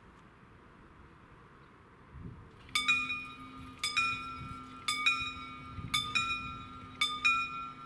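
German level crossing warning bell starting about two and a half seconds in, ringing a metallic ding roughly once a second (some strikes doubled), over a low steady hum that begins with it. It is the crossing signalling that its red lights are on and the barriers are about to close for an approaching train.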